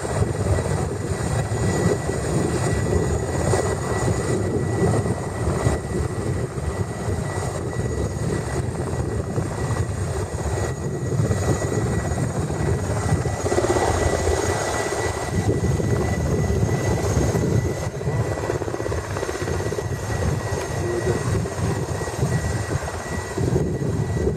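Helicopter running at close range: steady heavy rotor and engine noise with a constant high whine.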